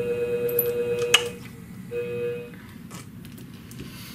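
Scimech Flathone flat-disc shear-sharpening machine's motor humming steadily, then a click about a second in as it is switched off and the hum dies away. It hums again briefly, then only light clicks of handling follow.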